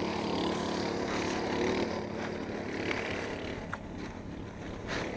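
Snowmobile engine running steadily, a continuous hum, with faint voices in the background.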